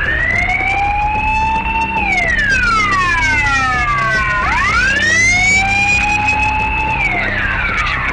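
Emergency vehicle siren wailing: the pitch rises, holds for about two seconds and falls slowly, then the cycle repeats, twice in all.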